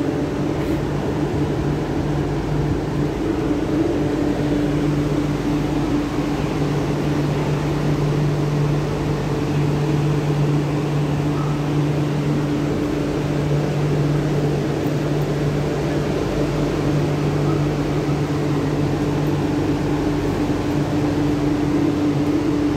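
MTR Kwun Tong Line Q-Train standing at a station: a steady hum of its on-board equipment, with two constant low tones over a soft rushing noise.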